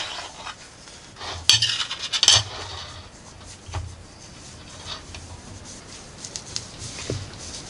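A table knife scraping and clinking against a plate while cutting a sandwich, with two louder scrapes about one and a half and two and a half seconds in, then a few lighter clinks.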